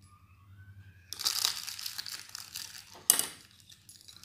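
A small packet of baking powder being folded and crinkled in the fingers, a crackling rustle that lasts about two seconds. There is one sharp clink about three seconds in, the metal spoon set down on the stone counter.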